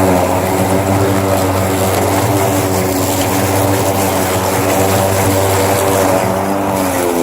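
Ryobi 20-inch battery-powered self-propelled lawn mower running, its electric motor spinning the blade through long, wet grass: a steady hum whose pitch wavers slightly as the load changes.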